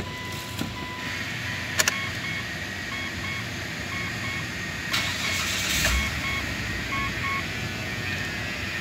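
Dashboard warning chime beeping repeatedly in the cabin of a Mitsubishi Pajero, then about five to six seconds in the engine cranks and starts, after which it keeps running.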